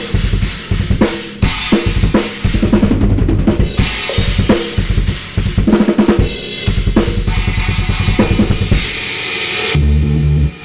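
Acoustic drum kit played in a free improvisation: quick, irregular snare and bass drum hits under washing cymbals. Near the end the drumming gives way to a low, steady tone.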